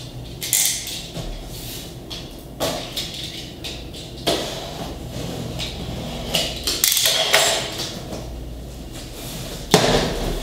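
Cardboard box being slit open with a box cutter and its top flaps pulled apart: a series of irregular scrapes and rustles, with a sharp crack of cardboard near the end.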